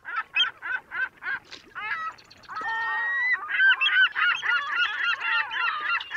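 A flock of geese honking: short calls a few a second at first, thickening into a dense, overlapping chorus about halfway through.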